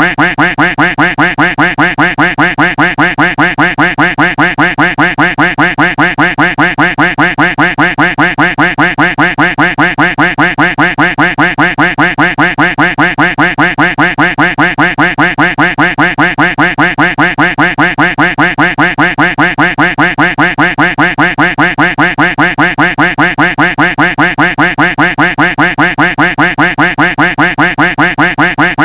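Duck quack sound effect looped: the same quack repeated over and over at a fast, even rate of about three a second, without a break.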